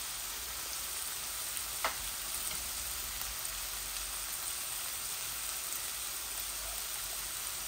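Sliced peppers, sweet corn and onion sizzling steadily in a hot non-stick frying pan as a stir-fry cooks, with a single light click about two seconds in.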